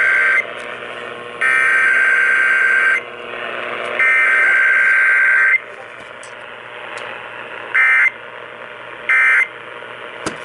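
Emergency Alert System SAME data bursts heard over AM/FM radio reception, a harsh warbling digital screech. Three long header bursts come about a second apart, then two short bursts near the end, the end-of-message code. Radio hiss fills the gaps between bursts.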